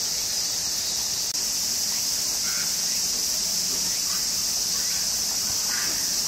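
Cicada chorus: a steady, high-pitched drone.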